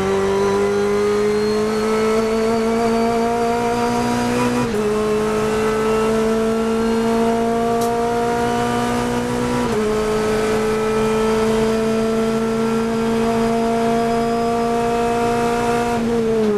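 Onboard sound of a Renault Clio Cup race car's four-cylinder engine at full throttle, its pitch climbing steadily with two upshifts about five and ten seconds in. Near the end the driver brakes and downshifts, and the revs blip up and down.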